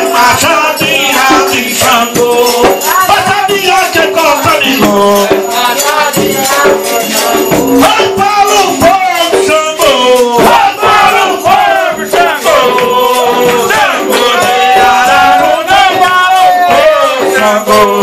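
Umbanda ritual chant for Xangô: voices sing into a microphone over the steady shaking of rattles.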